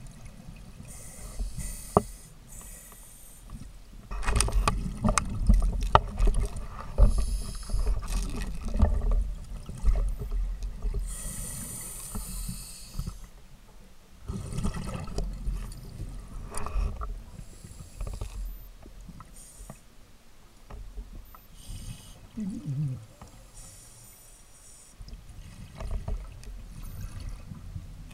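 Scuba diver breathing through a regulator underwater: a short hissing inhalation every few seconds, and between them rumbling, gurgling bursts of exhaled bubbles.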